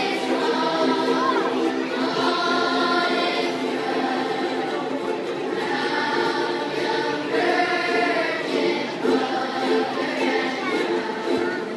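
Children's choir singing a Christmas song in sustained, held notes, accompanied by strummed ukuleles.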